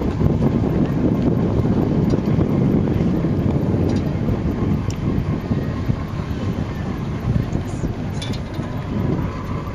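Wind buffeting the microphone aboard a boat: a steady low rumble, with the boat's engine and water noise blended underneath.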